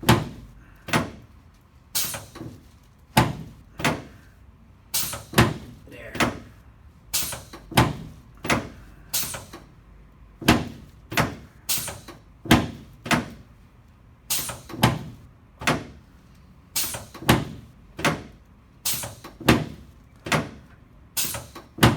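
A long run of sharp clacks from a chiropractic sacrum adjustment on the treatment table, about one and a half a second and uneven in spacing.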